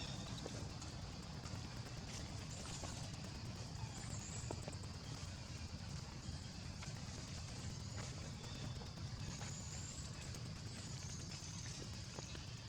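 Outdoor ambience: a steady low rumble with a faint high hiss, a few brief high chirps and scattered light taps.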